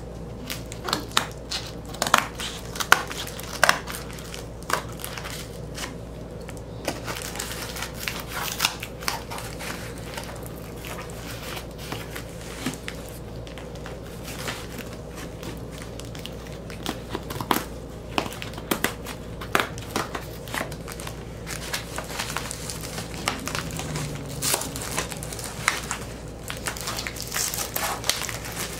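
Scissors cutting into a cardboard record mailer and its plastic wrap, with crinkling plastic and crackling cardboard as it is handled. The sound is a run of irregular sharp snips and rustles.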